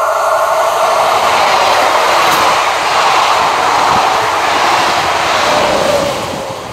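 Double-deck VR 2N passenger coaches, pushed by a BB 22200 electric locomotive, passing close by on the rails with a loud, steady rumble and clatter of wheels. The noise drops off about six seconds in as the locomotive at the rear goes by.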